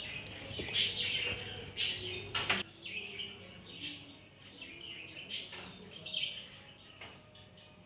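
Birds chirping in short, scattered calls, louder in the first couple of seconds and fainter after.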